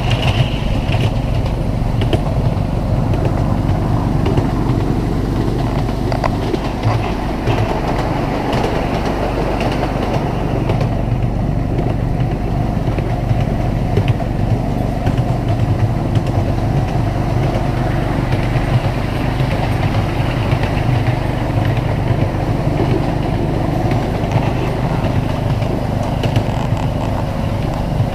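Miniature railway train running steadily along the track: the locomotive's small engine runs at an even pitch over the rumble of the carriage wheels on the rails, with faint clicks throughout.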